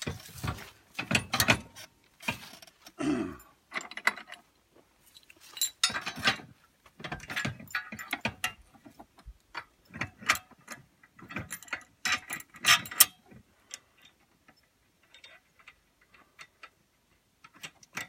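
Irregular metallic clicks, clinks and knocks as the cultivator shovel mounts on a homemade ATV-pulled cultivator are adjusted by hand to set the digging depth, quieter after the middle, with a run of small ticks near the end.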